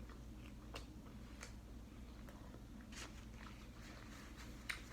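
Faint chewing and mouth sounds of a person eating, with a few soft clicks scattered through.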